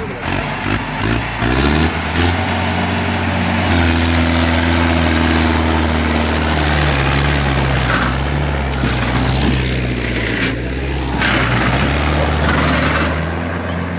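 Mahindra Arjun 605 tractor's four-cylinder diesel engine revving up and then labouring steadily at high revs under heavy load as it drags a trailer loaded with sugarcane, enough to lift its front wheels. The revs climb over the first couple of seconds, hold, and ease off near the end.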